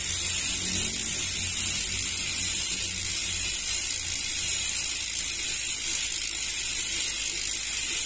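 Rear freehub of an RT mountain-bike hub freewheeling as the wheel coasts in a stand. Its three pawls click over the ratchet ring so fast that they merge into a steady, high-pitched, cricket-like buzz.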